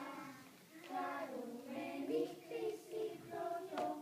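A group of children singing a song together, holding and sliding between notes, with one brief click near the end.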